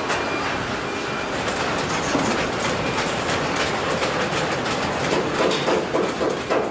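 Car assembly plant floor noise: a steady, dense clatter of machinery with many rapid clicks and knocks.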